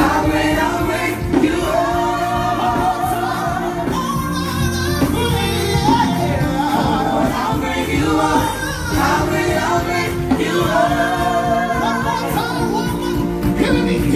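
Gospel-style singing over instrumental accompaniment, with sustained melodic lines over a steady bass.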